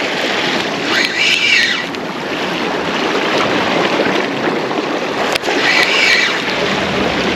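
Sea surging and washing against shoreline rocks, a steady rushing noise with wind on the microphone. Twice, about a second in and again about six seconds in, a faint high-pitched sound rises and falls over it.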